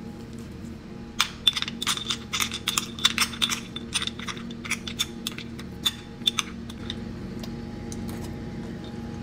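Metal spoon clinking and scraping against a small ceramic ramekin while food is spooned into it: a quick, irregular run of sharp ringing clicks that starts about a second in and dies out after about six seconds. A steady low hum runs underneath.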